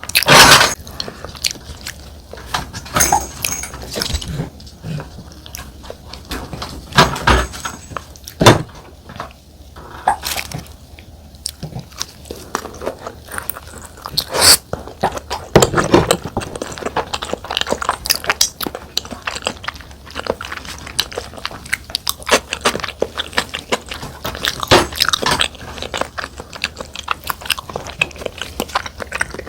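Close-miked eating: chewing and biting of soy-sauce-marinated salmon with rice, broken by frequent sharp clicks and knocks.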